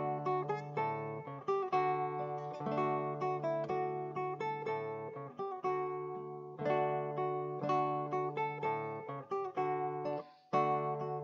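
Acoustic guitar playing a tune in picked notes and chords, stopping briefly shortly before the end and then going on.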